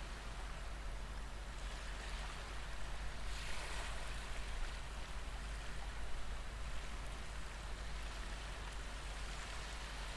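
A background recording of ocean waves washing on a shore: a steady hiss of surf that swells a little about three seconds in, then settles.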